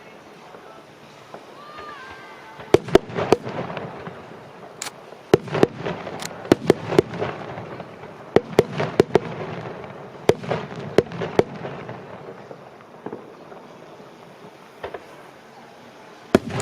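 Aerial fireworks shells bursting overhead: a rapid string of sharp bangs with crackle in between, from about three seconds in until about eleven, then a lull and one more bang near the end.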